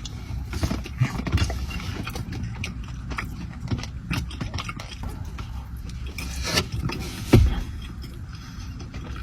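A person chewing a donut close to the microphone: soft irregular mouth noises and small clicks, with one sharper knock about seven seconds in, over a low steady hum.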